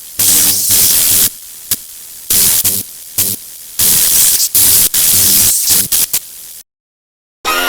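Loud electronic static that cuts in and out in irregular bursts over a quieter steady hiss, with a low buzz under the loud bursts. It stops abruptly a little before the end, and after a short silence music begins.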